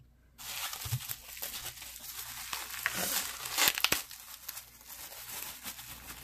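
Bubble wrap being pulled open by hand: crinkling, rustling plastic with sharper crackles about three and four seconds in.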